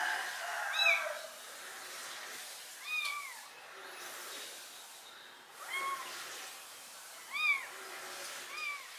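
A very young kitten meowing, about five short high cries that rise and fall in pitch, a second or two apart: the kitten is crying from hunger.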